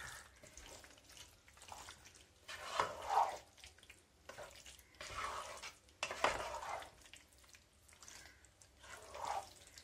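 Wooden spatula stirring thick, wet lemon pickle in a non-stick pot, heard as about five short, wet stirring strokes with quiet gaps between them.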